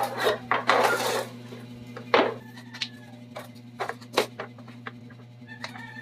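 Hard plastic baby high chair parts, the seat shell and tray, being handled. There is rustling in the first second, then scattered sharp knocks and clicks of plastic on plastic, over a steady low hum.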